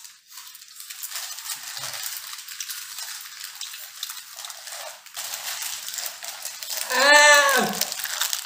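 Small foil Lay's chip packets crinkling in people's hands and chips crunching, an irregular crackle. Near the end one voice gives a short sound that rises and falls in pitch.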